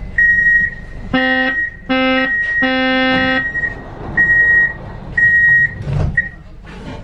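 Door-closing signal of a Škoda Varsovia metro train: three loud low buzzes about one to three seconds in, the last one longer, over a high beep that repeats about once a second. Near the end there is a thump as the sliding doors shut.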